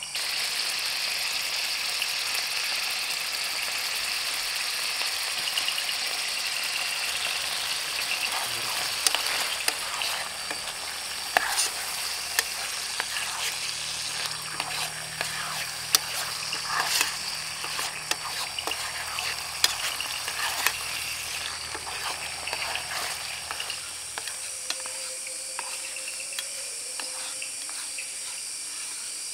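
Canned tuna in chili sauce sizzling as it heats in a pan on a portable gas stove, with scattered clicks and scrapes of stirring. A low hum under the sizzle stops near the end, leaving a quieter hiss.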